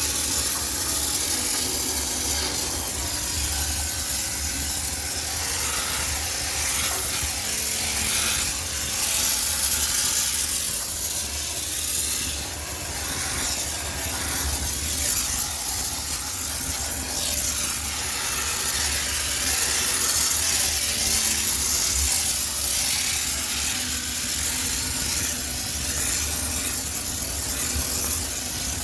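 High-pressure steam cleaner hissing steadily as it blasts steam to sterilise a washing machine, with a steady low hum underneath.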